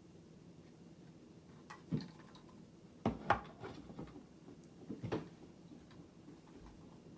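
Several sharp clicks and knocks of the inverter's casing and parts being handled and pried at: one about two seconds in, a quick cluster around the middle, and two more a second later.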